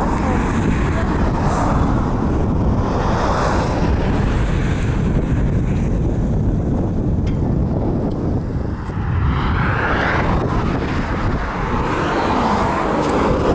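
Road traffic going past, several vehicles swelling and fading one after another, over a steady rumble of wind on the microphone.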